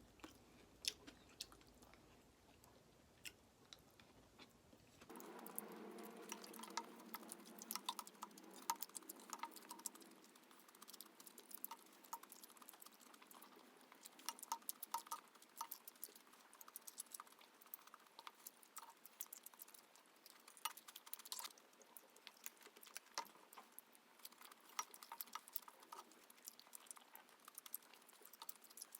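Faint, irregular small clicks and taps in a quiet room, a little fuller from about five seconds in.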